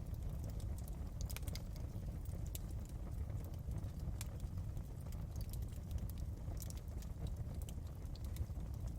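Wood fire burning in a fireplace: a steady low rumble with irregular sharp crackles and pops from the burning logs.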